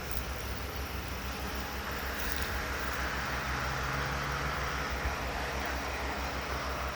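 An engine idling with an even low throb, with a soft rushing haze that grows a little about two seconds in.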